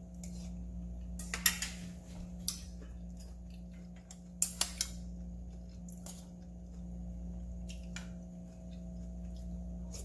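Metal spoon clinking and scraping against a bowl of soup while eating and stirring: scattered sharp clinks, the loudest about a second and a half in, with a few more in quick succession about halfway through. A low steady hum lies underneath.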